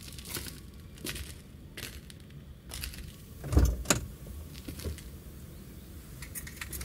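Sound effects of getting into a car: a few light clicks, then a car door shutting with a thump about three and a half seconds in, and faint clicks near the end.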